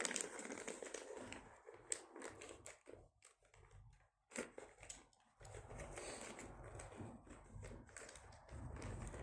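Faint rustling and crinkling of packaging, with scattered small clicks and knocks, as boxes and door closer parts are handled. It goes almost quiet about three seconds in, then a sharp click comes just after four seconds.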